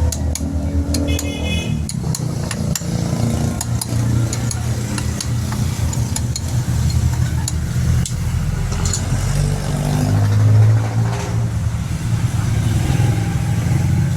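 Motor vehicle engines running and passing close by, with a low drone that swells about ten seconds in. Scattered light clicks and taps sound over it.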